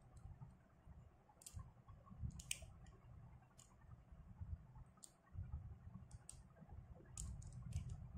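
Faint, irregular clicks of a precision screwdriver working the small screws of a spinning reel's body and of the reel's metal parts being handled, about a dozen in all, over a low handling rumble.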